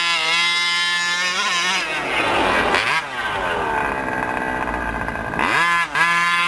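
Losi 5ive-T RC truck's small two-stroke gasoline engine revving up and down as it is driven. It climbs to a high steady whine, drops back, and revs hard again near the end after a brief cut.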